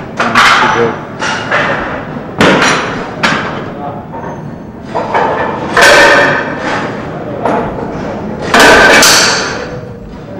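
Gym weight equipment clanking and thudding during a set of heavy seated rows: a run of sharp metal knocks, with two longer, louder rushes of noise, one near the middle and one near the end.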